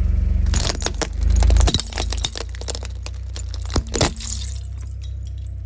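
Car tyre rolling over plastic Rubik's cubes and crushing them, with a run of sharp cracks and snaps. The loudest come about a second and a half in and again near four seconds. The car's engine runs as a low, steady rumble underneath.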